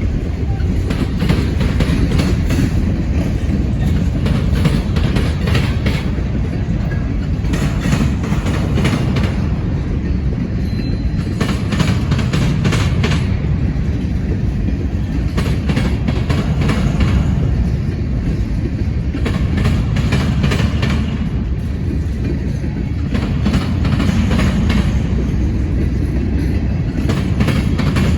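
Freight train cars rolling past close by: a steady heavy rumble, with groups of wheel clicks over the rail joints coming every couple of seconds.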